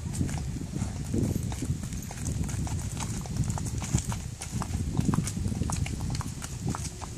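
Horses' hooves clip-clopping at a walk on an asphalt road: two horses, their steps giving a string of irregular sharp clops.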